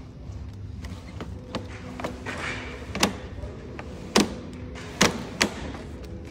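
A slat panel sliding down in the frame's channel with a short scraping hiss, then about four sharp knocks over the next two and a half seconds as it seats against the bars.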